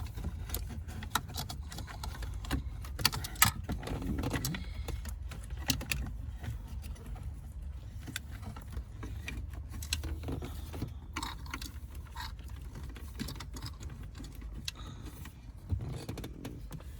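Scattered clicks, taps and rattles of plastic and wiring as the interface box and its harness are pushed into the dashboard cavity, over a steady low hum.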